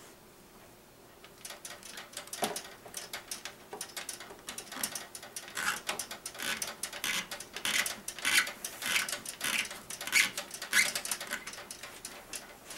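Hands working thick flexible tubing onto a water-cooling fitting and screwing its compression collar down: quick, irregular clicking and scraping in short runs, starting about a second and a half in.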